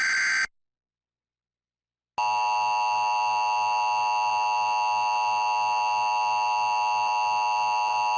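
A brief Emergency Alert System data burst in the first half second, then silence. From about two seconds in, the steady two-tone EAS attention signal sounds loudly and continuously, heralding the next severe thunderstorm warning.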